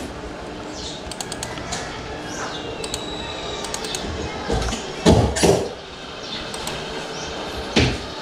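Computer keyboard and mouse clicks, with a few louder knocks about five seconds in and again near the end.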